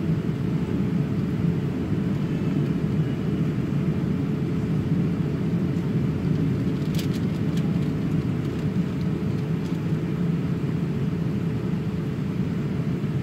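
Airliner cabin noise in flight: a steady low rumble. A few light clicks come between about seven and ten seconds in.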